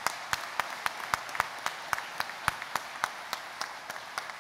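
Audience applauding, with many sharp individual claps standing out over the steady patter of the crowd's clapping.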